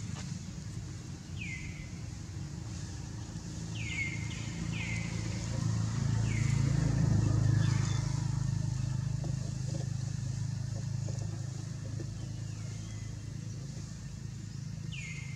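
A motor vehicle's engine rumbling past, swelling to its loudest about halfway through and then fading. Over it come short high chirps, each falling in pitch, repeated every second or so.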